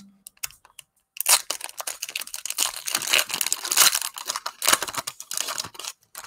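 A Panini Prizm cello pack's plastic wrapper being torn open and crinkled by hand: a dense, crackling run that starts about a second in and lasts close to five seconds, after a few faint clicks.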